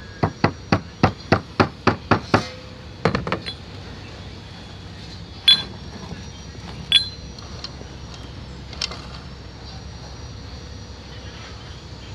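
Steel being struck with a hammer: a quick run of about ten sharp metallic knocks, roughly four a second, then a short cluster and three single clanks spaced a second or two apart.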